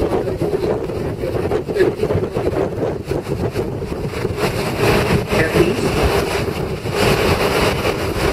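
Moving bus running steadily along a road, with engine drone and road noise, and wind on the microphone.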